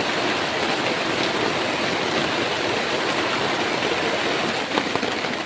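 Steady rushing of flowing stream water, running high.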